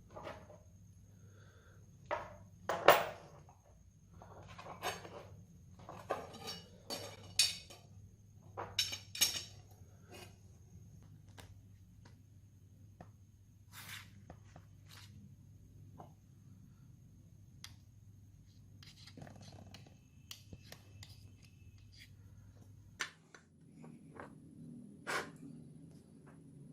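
Scattered metallic clinks and knocks, the loudest about three seconds in and several close together a few seconds later, like metal tools and knife parts being handled and set down on a workbench, over a faint steady hum.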